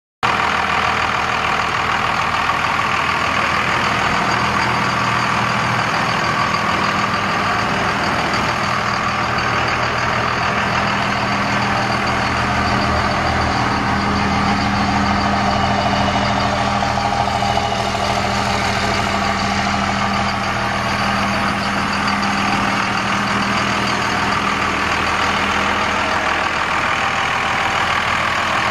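Cummins 5.9-litre inline-six diesel engine of a 2001 Dodge Ram 2500 pickup, idling steadily.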